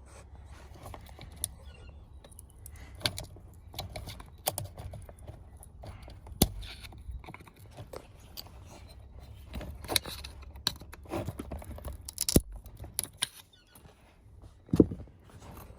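Irregular sharp clicks, taps and light scrapes of small plastic and metal parts being handled as a wiring connector's plastic housing is pried and broken apart to free its pins, with a few louder knocks.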